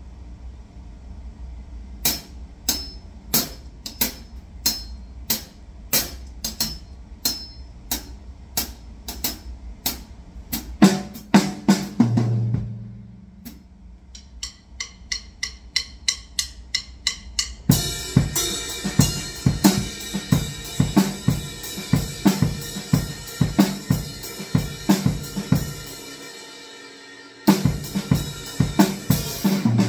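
Acoustic drum kit played at a slow tempo. After a low hum, steady strokes come about twice a second, then a tom fill, then lighter quick cymbal taps. From the middle on the full kit plays louder with crashing cymbals, stops briefly near the end, then starts again.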